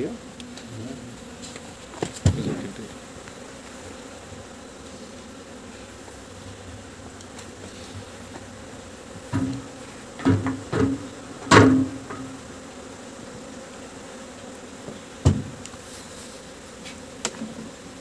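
Honey bees buzzing steadily, with several sharp knocks, most of them clustered near the middle, as wooden comb frames are set into a metal honey extractor.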